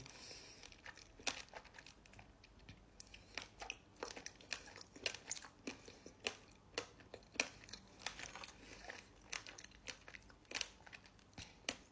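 Close-miked chewing of sticky, sour lavashak fruit leather coated in pomegranate molasses: faint, irregular wet clicks and crackles.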